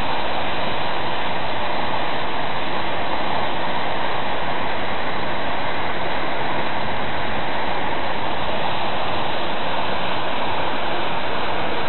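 Tall waterfall pouring down a cliff: a loud, steady rush of falling water.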